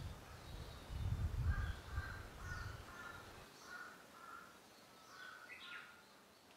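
A series of short bird calls, about eight in quick succession, ending with one rising call, over a low rumble that stops about three and a half seconds in.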